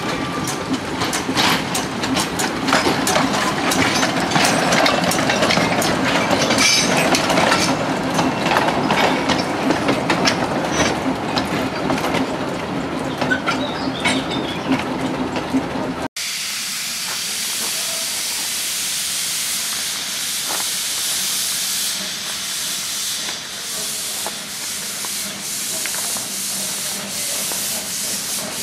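Narrow-gauge steam tank locomotive running slowly past with its carriages, wheels clicking over the rail joints under a low steady hum. About 16 s in this gives way abruptly to a steady high steam hiss from a locomotive standing at a station platform.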